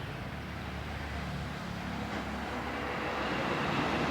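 Steady background traffic noise, growing louder toward the end.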